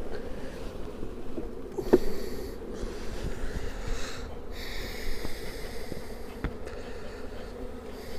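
Honeybees buzzing around an opened hive, a steady hum. There is a sharp knock about two seconds in, and cloth rustles close to the microphone for a few seconds after it.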